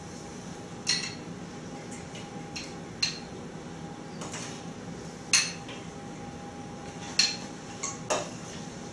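A stainless jigger and a glass bottle clinking against a stainless cocktail shaker tin while vodka is measured and poured. The clinks are short and sharp, spaced a second or two apart, and the loudest falls a little past the middle.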